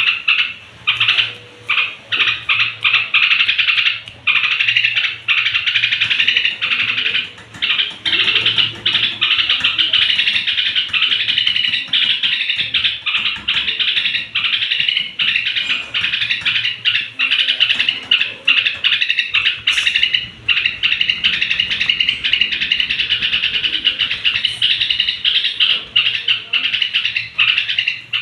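Yellow-vented bulbul (trucuk) chattering in an unbroken stream of rapid, high twittering notes, its pre-roost evening calling. A steady low hum runs underneath.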